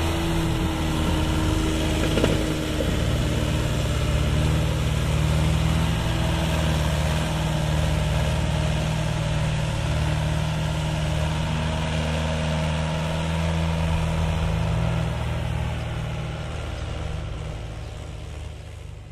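Mahindra 575 tractor's diesel engine running hard under heavy load, hauling a loaded trolley so that the front wheels lift. The engine note is steady, then fades over the last few seconds as the tractor moves away.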